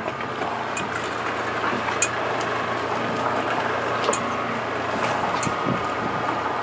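Boat engine idling with a steady low hum under a wash of noise. A few light clicks and knocks come through as the trap buoy and line are hauled up with a boat hook.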